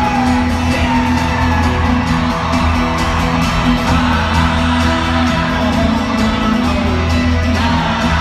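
Live folk-rock band playing an instrumental passage, held bass notes under guitars, recorded from among the crowd in a large arena so the music is loud and reverberant. Crowd whoops are mixed in.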